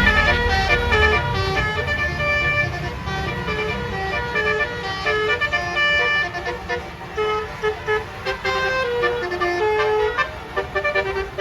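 A tour bus's basuri telolet multi-tone horn playing a quick melody: a run of short horn notes stepping up and down in pitch, sometimes several tones together.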